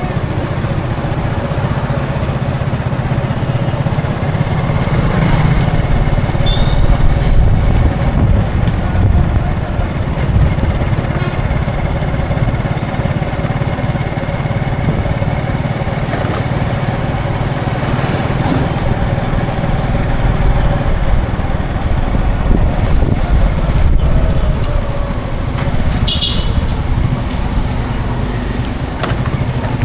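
Continuous road traffic: a steady, dense rumble of engines and tyres from passing vehicles, motorcycles among them. A couple of brief high-pitched chirps stand out, a few seconds in and again about 26 seconds in.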